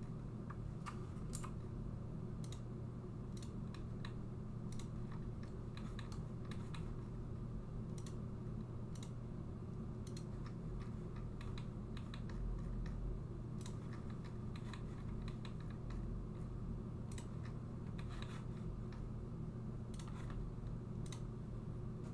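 Irregular, scattered clicks of a computer mouse and keyboard, single clicks and short runs, over a steady low hum.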